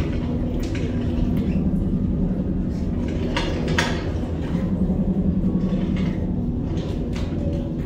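Dark-ride sound effects of a starship interior: a steady low mechanical hum and rumble, with a few short sharp mechanical noises, the clearest about three and a half seconds in.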